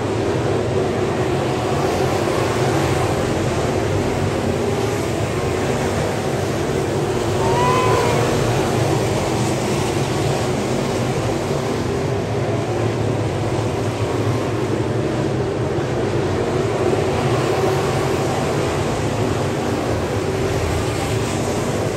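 A field of 602 crate-engine dirt late model race cars running around the track, a steady dense blend of many V8 engines. A short pitched whoop rises and falls about eight seconds in.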